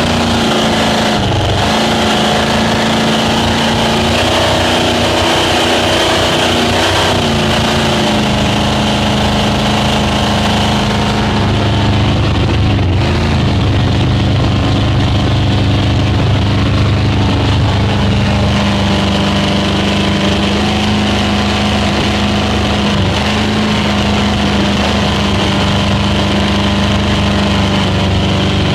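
Speedboat engine running steadily under way, its pitch holding nearly constant with a few brief dips, over a continuous rush of noise.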